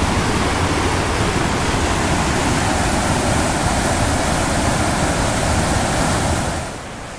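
Small creek waterfall cascading over rocks: a steady, loud rush of white water that drops in level near the end.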